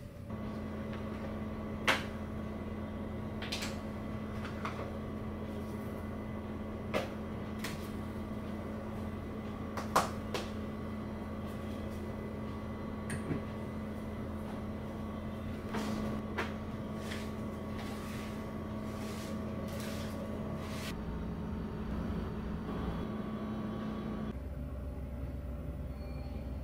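A small appliance motor hums steadily, its tone shifting twice near the end, with scattered clicks and light knocks of things being handled, two of them sharper than the rest.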